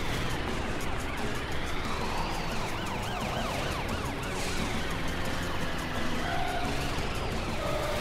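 Police car siren wailing, its pitch rising and falling slowly, with a quicker warble mixed in through the middle.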